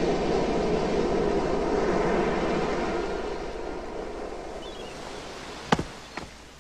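Ocean surf washing onto a beach: a steady rushing that slowly fades. A sharp click comes near the end.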